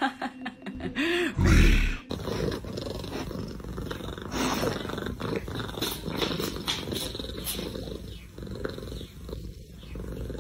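A Siamese cat gives a short call that glides in pitch, followed by a loud thump. Then a Siamese cat lying on a lap makes a long, low, continuous rumbling.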